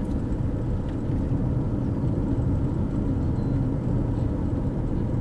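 Steady low rumble of a car driving along a paved road: engine and tyre noise at cruising speed.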